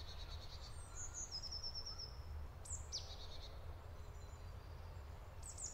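Forest ambience: small songbirds giving a few high chirps and a short rapid trill, over a faint low steady rumble.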